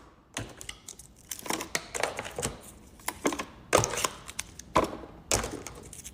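Plastic fruit cups being unpacked and set into a fridge container: irregular plastic clicks and knocks, with crinkling of packaging.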